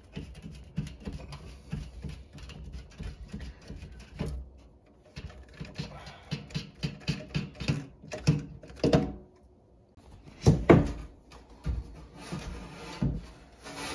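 Irregular clicks, clunks and knocks of hand work under a kitchen sink as plastic drain fittings are unscrewed and pulled apart, with a few louder knocks past the middle. Near the end a stainless steel sink bumps and scrapes as it is lifted out of its countertop cutout.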